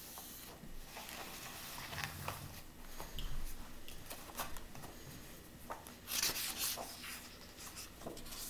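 Large paper pages of a paperback colouring book being turned and handled, rustling and sliding against each other in irregular strokes, the loudest rustle about six seconds in. A soft low bump comes around three seconds in.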